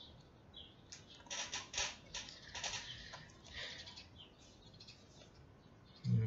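Faint clicking at a computer, mouse and keys, clustered in the first few seconds, with small birds chirping now and then in the background.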